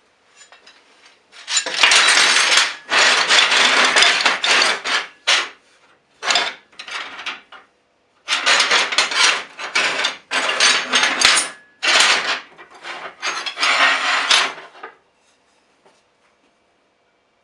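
Old steel files clattering and scraping against one another and on a metal bench top as they are laid out and sorted by hand, in two spells of several seconds each.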